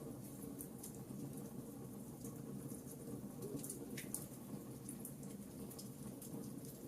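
Campfire crackling: scattered sharp pops and ticks at irregular intervals over a low steady rumble of the burning wood, with one stronger pop about four seconds in.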